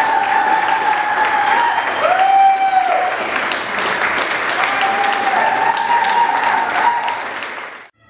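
Audience applauding: a dense patter of clapping with a few long pitched calls over it. It fades out near the end.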